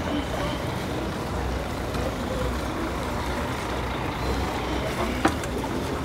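Steady low rumble and hiss of outdoor harbour noise with faint distant voices, and a single sharp knock about five seconds in.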